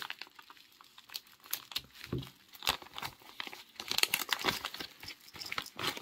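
Plastic packing wrap crinkling and crackling in quick, irregular bursts as hands rummage through a cardboard parcel.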